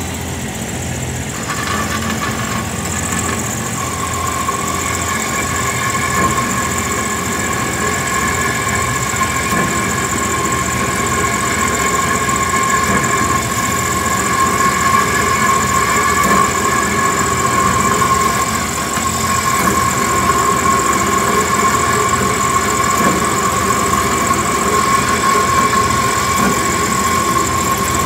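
1964 DoAll 1612-U metal-cutting bandsaw running, its dull welded-up blade cutting through a steel bar as the bar is pushed hard into it. A steady, ringing, high-pitched cutting tone sets in about a second in and holds over the machine's running rumble.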